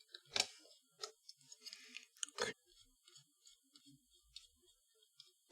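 Faint, scattered clicks and taps of parts being handled inside an opened Mac mini while its RAM is removed, the loudest about two and a half seconds in.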